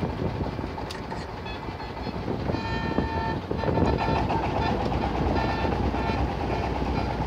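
Motor boat's engine running steadily: a low drone, with a higher whining tone that comes and goes several times.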